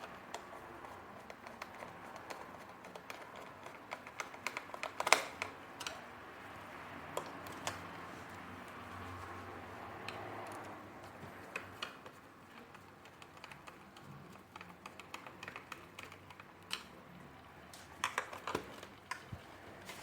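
Irregular clicks and taps of plastic vacuum-cleaner parts being handled and fitted together by hand, with a louder knock about five seconds in and a quick run of clicks near the end.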